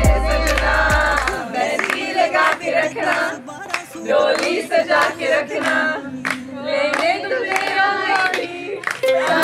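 A group of voices singing together, with hand claps; the backing music's bass stops about a second and a half in.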